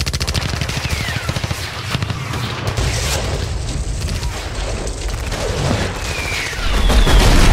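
Battle sound effects: a rapid burst of machine-gun fire at the start, scattered shots and two short falling whistles, then a heavy, low explosion rumble near the end that is the loudest part.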